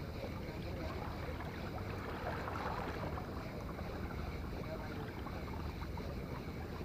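Steady wind and sea-water noise with a low rumble underneath, and no distinct events.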